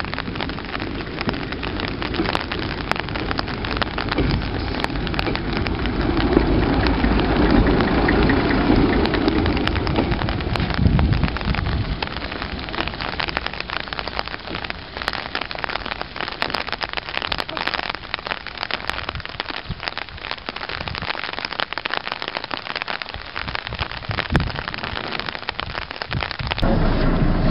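Steady rain with many small crackling drops. Underneath it, the diesel engine of a Fuji Heavy Industries railbus swells for several seconds in the first half as the railbus passes, then falls away.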